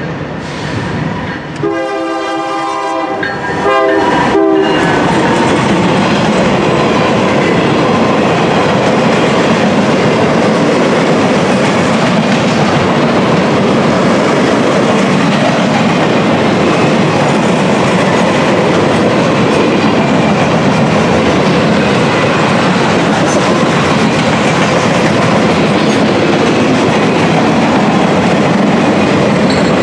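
A Norfolk Southern GE ES40DC diesel locomotive sounds its horn about two seconds in, a long blast then a shorter one. It then passes close by, and the rest is the loud, steady rumble and clickety-clack of a long string of rail-rack flatcars rolling past.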